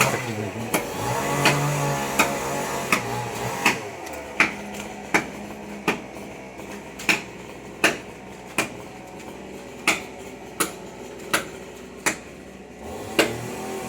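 Dao (machete) blade chopping into a tree trunk in steady strokes, about one every 0.7 seconds, over a steady background hum.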